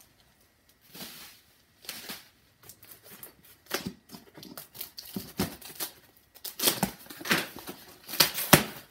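Plastic packing wrap and bags rustling and crinkling in irregular bursts, with short clicks, as press parts are unpacked by hand. The rustling is loudest in the last few seconds.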